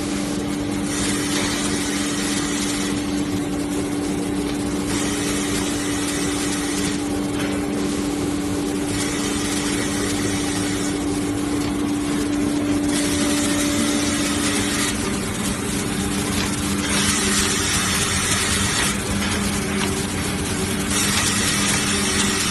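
Automatic band saw cutting machine for maxi-roll tissue and hand towel paper running: a steady machine hum under a hissing noise that comes and goes in turns of about two seconds.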